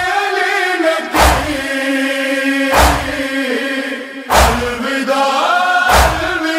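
Men's voices chanting a Shia noha (mourning lament) in a long, wavering melodic line. A loud, sharp unison thud beats time about every one and a half seconds, four times.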